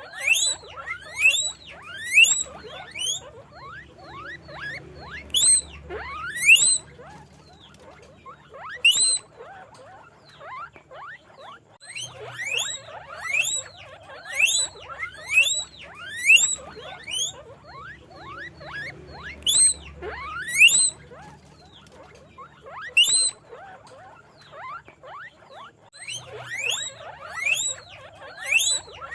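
Guinea pigs wheeking: loud, high, rising whistle-like squeaks in bursts of several a second, with quieter chatter between the bursts.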